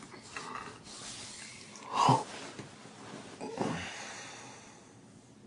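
A person's breathy exhales in a quiet room: a short huff about two seconds in and a weaker one about a second and a half later.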